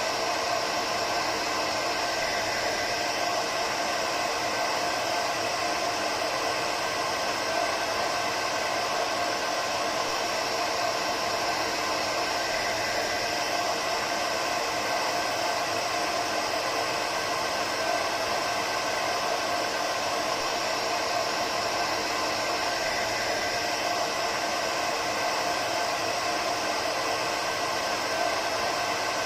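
Hair dryer running steadily: an even rushing whoosh of air with a faint motor hum, used as white noise.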